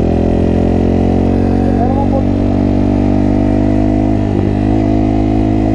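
Honda CRF230F dirt bike's air-cooled single-cylinder four-stroke engine running at a steady speed while the bike is ridden, heard from on the bike.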